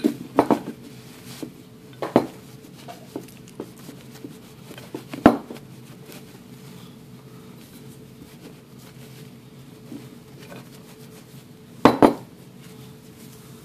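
Handling and wiping of a field-stripped Glock 19's slide and parts: scattered clicks and knocks of the steel slide and parts bumping and being set down on the table, the loudest about five seconds in and a quick pair near the end, with quiet stretches between.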